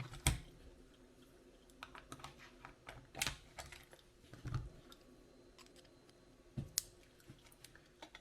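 Handling noise of an RC transmitter's steering wheel being tried on: irregular small clicks and taps of hard plastic and metal parts, with a few sharper knocks.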